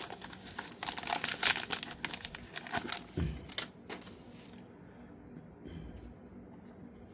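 Crinkling of a foil trading-card pack wrapper being handled, dense for the first three seconds or so, then dying away to a few light clicks of cards being handled.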